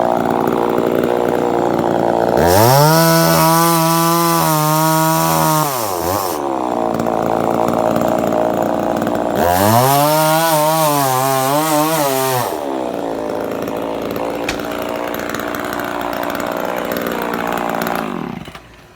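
Two-stroke chainsaw running under load while cutting through a tree stump. It goes to full throttle twice for about three seconds each, with a bright cutting hiss, and runs at lower revs in between. It cuts off shortly before the end.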